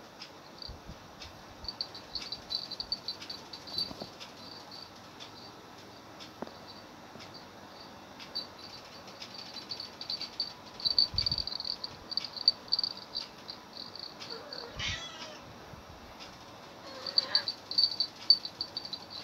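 Insects chirping in a high, rapidly pulsing trill that comes in runs, with a few low thumps and two brief wavering calls in the second half.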